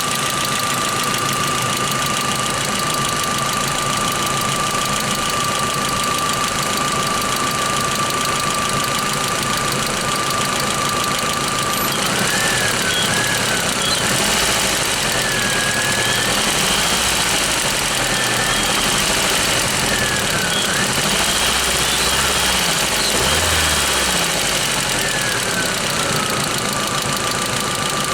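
VW Sharan's 1.8T four-cylinder turbo petrol engine (AWC) running with a persistent valvetrain ticking, the sign of a worn hydraulic valve lifter. A high steady whine sits alongside it and wavers in pitch through the middle stretch before settling again near the end.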